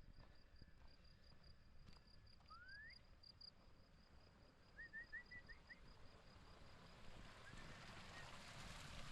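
Faint bird calls: a single rising whistle about two and a half seconds in and a short run of quick chirps about five seconds in, over a high, thin note pulsing several times a second. Low wind rumble throughout, with a hiss of wind growing near the end.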